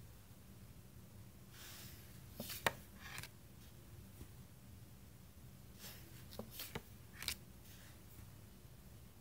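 Tarot cards being handled: a few soft slides of card against card and several light, sharp taps as cards are set down, the clearest about two and a half seconds in and a quick cluster near seven seconds.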